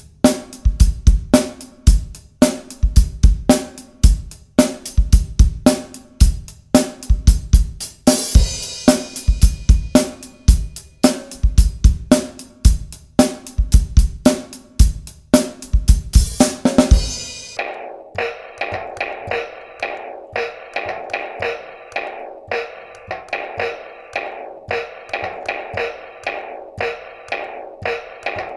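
Acoustic drum kit played in a fast groove with bass drum, snare and cymbals, the cymbals washing heavily from about 8 s. About 17 seconds in it cuts to a toy electronic finger-drum set tapped with the fingertips, its drum sounds quieter and thinner, with no deep bass.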